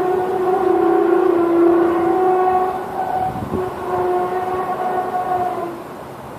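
A long, sustained horn-like drone of several steady tones heard together, the kind of unexplained sound recorded from the sky. It breaks off briefly about halfway through, comes back, and fades near the end.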